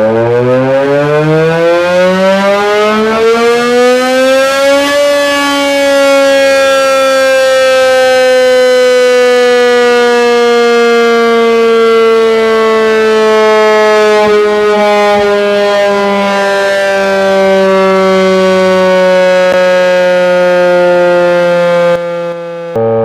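Electric civil-defence war warning siren sounding: its pitch climbs steeply for about five seconds as it winds up, then sinks slowly and steadily, cutting off near the end.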